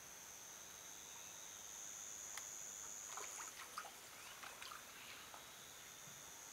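Insects making a steady high-pitched drone, a little louder about two to three and a half seconds in, with a scatter of faint clicks and rustles about three to five seconds in.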